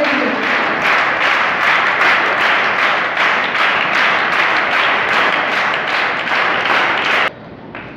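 Audience applauding, many hands clapping at once; the applause cuts off abruptly near the end.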